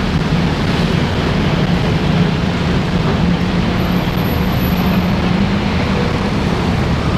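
Singapore MRT train running: a steady rumble with a low hum.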